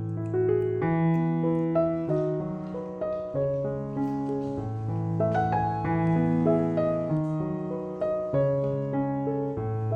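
Background piano music: a gentle tune of held notes over a slow bass line.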